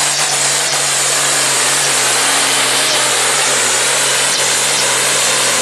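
Diesel engine of a supersport-class pulling tractor (limited to 7 litres and 2700 rpm) running flat out under full load while pulling the sled, at a steady pitch with a loud hiss over it.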